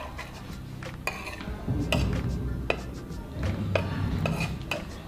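Spoons and forks clinking and scraping against bowls while people eat, about half a dozen separate clinks.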